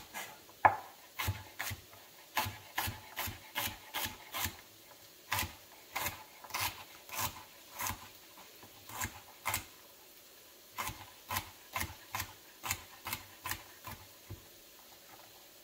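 A chef's knife chopping celery on a plastic cutting board, in a steady series of knocks about two a second. There is one louder knock just under a second in and a short pause about ten seconds in.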